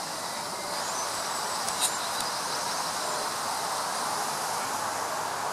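Wind rustling through tree leaves in a steady, even hiss, given artificial reverb. One sharp click a little under two seconds in.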